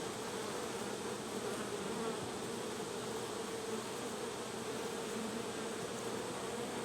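Honey bees buzzing steadily around an open hive, a continuous hum of many wings.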